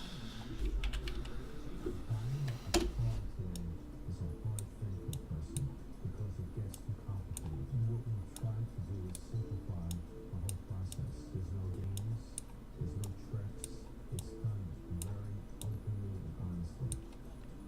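Computer clicking, a sharp click roughly every half second to second, as a randomizer is set up on screen. Faint background music plays underneath.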